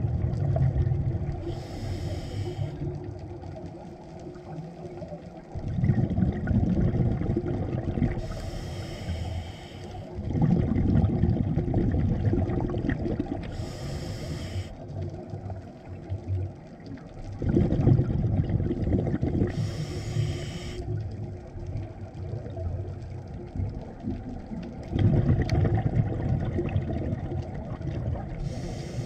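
Scuba regulator breathing heard underwater: a short hiss of inhalation through the demand valve five times, roughly every six seconds, alternating with a low bubbling rumble of exhaled air bubbling out of the exhaust valve.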